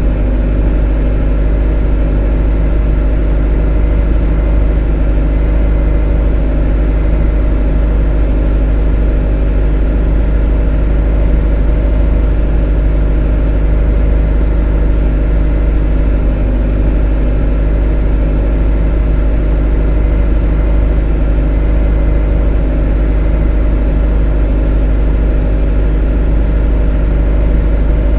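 A motor running steadily at constant speed: a monotonous deep drone with a stack of even tones above it, unchanging throughout.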